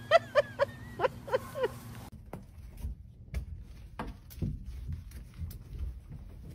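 A puppy yapping, about six short high barks in quick succession. After them come fainter scattered taps and knocks.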